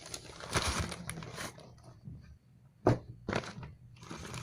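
Rustling of takeout packaging being handled, then a few short, sharp knocks, the loudest about three seconds in, as food containers are opened and set down.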